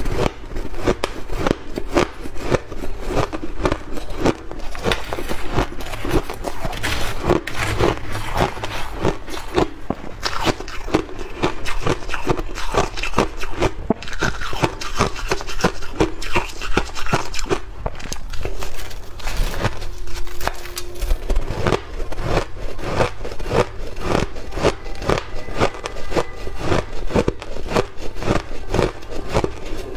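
Shaved ice being chewed close up: a dense, unbroken run of crisp crunches and crackles, with a metal spoon scraping into the ice.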